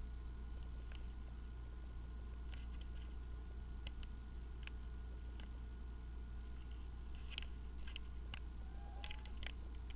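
Quiet room background with a steady low hum, broken by a scattered series of small, faint clicks and taps that come thickest near the end.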